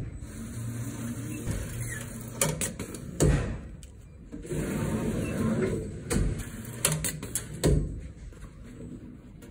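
Automated scrubs dispensing machine at work: a low motor hum and its glass hatch sliding, with several sharp knocks and clicks as folded scrubs are pulled out by hand.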